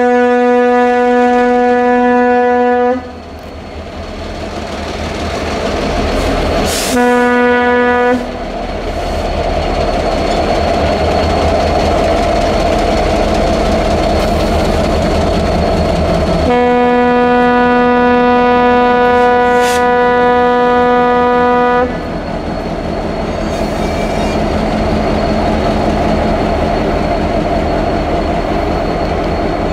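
Union Pacific diesel locomotives of a rotary snow plow train running past, with the multi-chime locomotive air horn sounding three times: a blast that ends about three seconds in, a short one of about a second around seven seconds in, and a long one of about five seconds from the middle. Between the horn blasts the locomotive engines and the rolling train make a steady heavy rumble.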